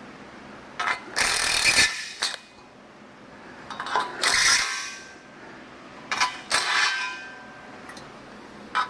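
Short bursts of a power tool cutting metal, about four of them, each close to a second long with a metallic ring. This is the work of widening bolt holes in an engine part so that thicker main cap bolts fit through.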